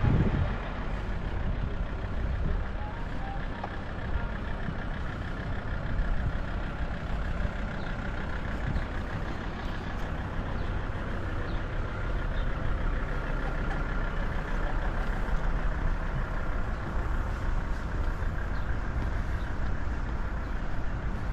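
Coach bus engine idling steadily, a continuous low hum. A brief gust of wind hits the microphone at the very start.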